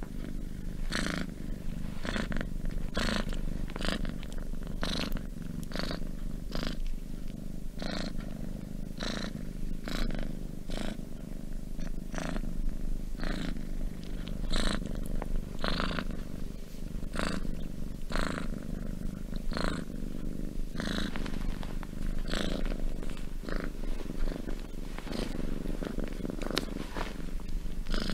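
Domestic cat purring: a steady low rumble with a breathy hiss that swells about once a second.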